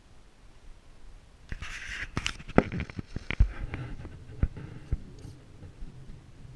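Handling noise: a burst of rustling with a run of sharp clicks and taps, starting about a second and a half in and thinning out to a few scattered clicks by about five seconds.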